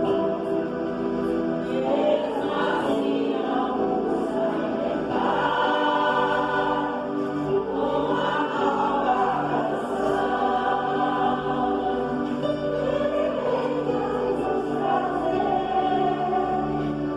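A choir singing a Brazilian popular song in several voices, with long held notes that change every second or two.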